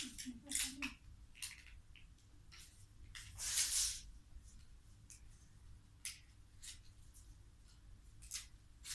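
Scattered sharp clicks and scrapes of a tape measure being handled and worked on by hand, with one louder, longer rushing scrape about three and a half seconds in.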